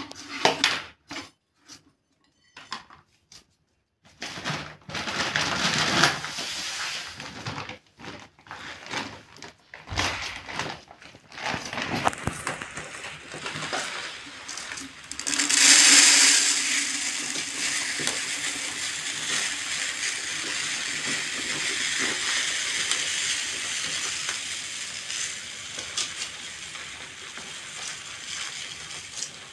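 Cauliflower florets being snapped apart and cut against a boti's upright blade: irregular short crisp crunches and snaps with brief pauses. About halfway through a steady hiss sets in and continues under the cutting.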